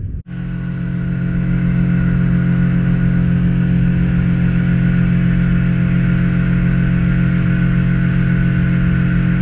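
Outboard motor pushing a small boat along at a steady cruising speed: a loud, even engine drone that swells over the first couple of seconds and then holds at a constant pitch.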